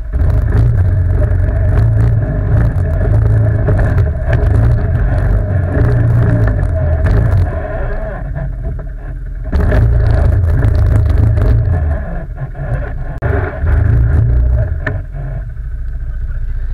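ATV quad engine running hard under throttle, surging and easing off several times, then settling lower near the end.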